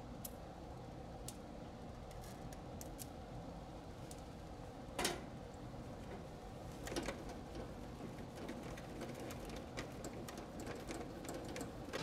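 Scattered clicks and light rattles of plastic wire connectors being unplugged and a circuit board being handled inside an air conditioner's electrical box. The sharpest click comes about five seconds in, and a quicker run of small clicks follows, over a faint steady hum.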